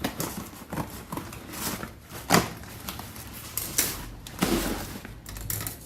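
A shipping parcel being handled and turned over: scattered knocks, scrapes and rustles, with one sharper knock about two seconds in.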